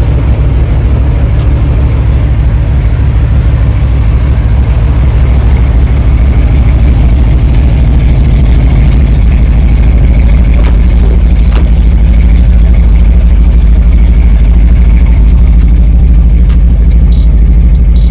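Car engine idling loudly, its exhaust a dense, rapid low pulsing, growing slightly louder about six seconds in.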